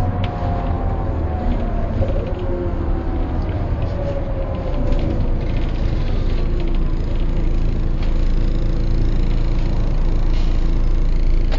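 Mercedes-Benz O408 bus heard from inside: the OM447hLA diesel's low running sound under a hub-reduction gear whine that falls in pitch over the first half as the bus slows, with a new whine starting to rise near the end.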